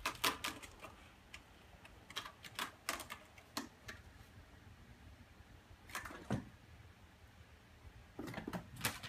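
Kitten's claws scratching and tapping at a cat scratching post and its plush frame, in short scattered bursts of sharp clicks and scrapes.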